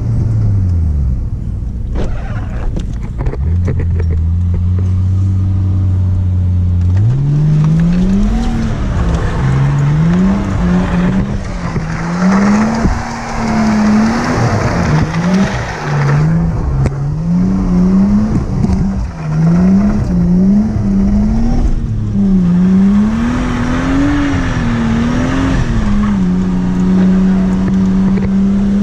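Nissan R33 Skyline's straight-six engine, heard from inside the car while it is driven hard. The revs fall and settle early on, hold steady for a few seconds, then from about seven seconds in climb and drop again and again as the driver works the throttle and gears through the bends.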